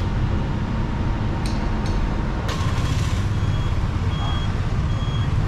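Busy city street traffic: a steady low rumble of motorbike and car engines. A few sharp clicks come in the first half, and three short, high beeps sound evenly spaced in the second half.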